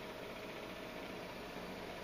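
Steady background hum and hiss of room tone, with a faint constant tone and no distinct events.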